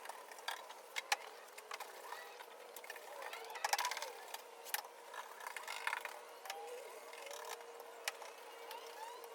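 Scattered light clicks and taps from hand brush-painting on a car's steel floor pan, with a few louder knocks.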